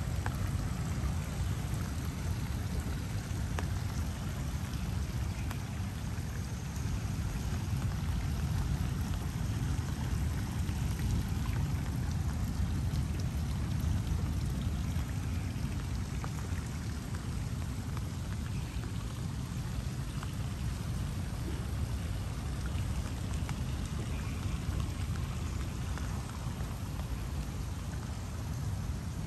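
Steady rain falling, with scattered drops ticking, over a continuous low rumble.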